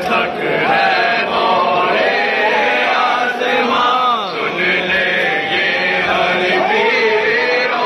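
Several men's voices chanting together, unaccompanied, in a melodic devotional chant with rising and falling pitch.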